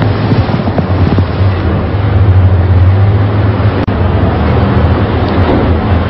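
Loud, steady background noise on a phone-call recording, with a strong low hum, heard through the phone line; it cuts out for an instant about four seconds in.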